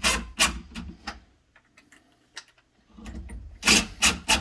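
Rhythmic scraping strokes on wood, about four a second, broken by a pause of roughly two seconds with a few faint ticks before the strokes start again near the end.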